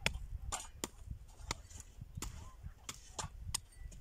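Hoes chopping into dry, stony soil: sharp, irregular strikes, two or three a second.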